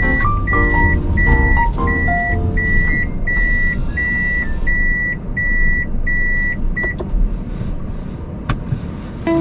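A car's reversing warning beeping steadily, about one beep every 0.7 s, over low engine and road rumble. The beeping stops about seven seconds in.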